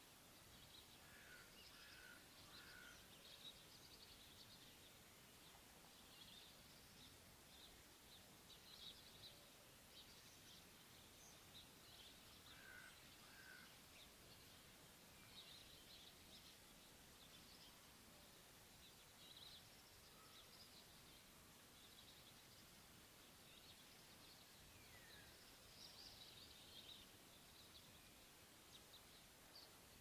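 Faint outdoor bird sounds: small birds chirping and twittering on and off throughout, with a few short, lower calls in groups of two or three.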